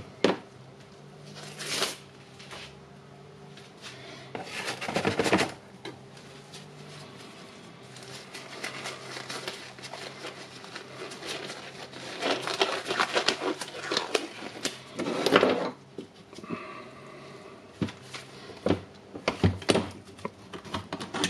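Clicks, knocks and rattles of a cordless impact wrench's housing and internal parts being handled as the tool is taken apart, with a couple of longer, noisier stretches of handling.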